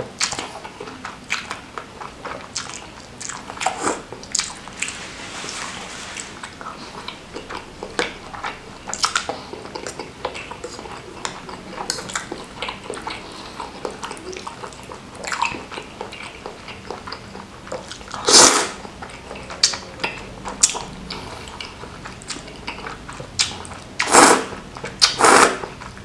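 Close-miked eating: spicy rice vermicelli slurped into the mouth and chewed, with wet smacking and chewing throughout. Near the end come three much louder slurps, the last two close together.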